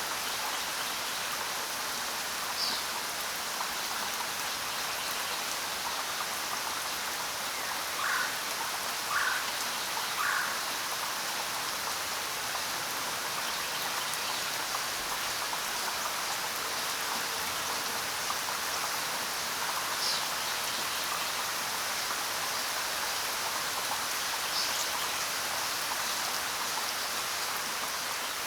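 Steady rain falling, an even hiss without thunder, with three brief higher-pitched chirps about eight to ten seconds in.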